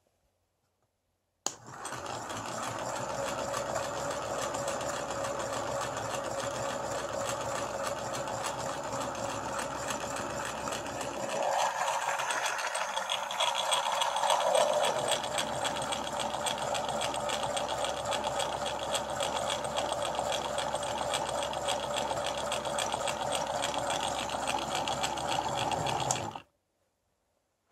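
3D-printed PLA model beam engine running, its plastic beam, linkages and flywheel making a steady mechanical whirr with a fine clatter. It starts suddenly, the pitch rises and falls briefly midway, and it cuts off suddenly near the end.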